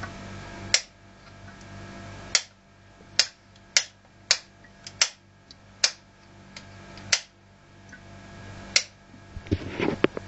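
Opened, water-wet 3.5-inch hard disk drive under power, its head actuator clicking sharply about nine times at uneven intervals, with a low whir slowly building between clicks, then a quick flurry of smaller clicks near the end. The damaged drive keeps trying to spool up and failing.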